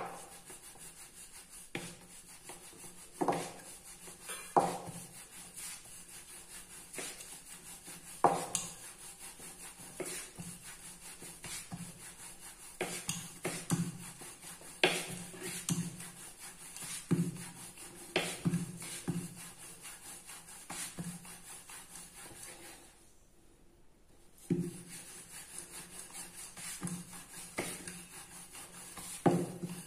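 Wooden rolling pin rolling dough out on a wooden board: a low rubbing sound with irregular knocks and clicks as the pin rolls and bumps the board. It stops for a moment about three quarters of the way through.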